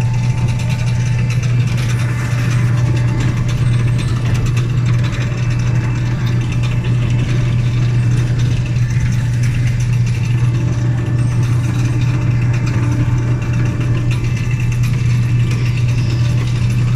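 Train number 9 running steadily: a constant low hum with mechanical rattling and clicking throughout.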